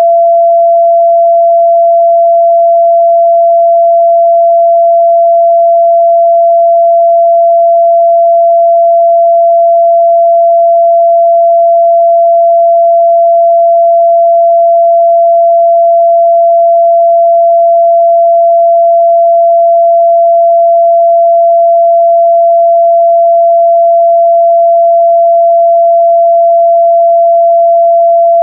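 A steady, loud 678 Hz sine-wave test tone, one pure unchanging pitch with no other sound.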